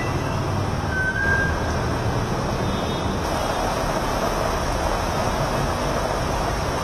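Steady hiss of heavy rain with the low rumble of traffic on a flooded street, and a short high tone about a second in.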